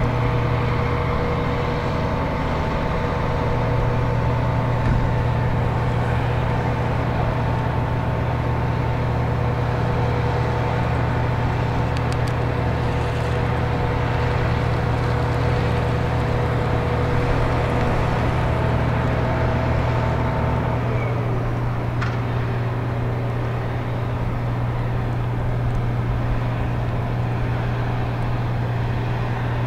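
Ship's deck crane lowering a heavy load: a steady low machinery drone with a whine of several steady tones. About two-thirds of the way through, the whine drops in pitch and stops, leaving a single lower tone over the drone.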